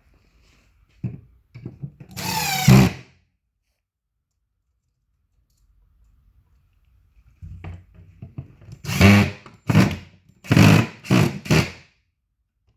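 Power drill driving screws into the cabinet's wood panels: one run of about a second, then several short trigger bursts near the end as screws are driven home, with a few light knocks of handling.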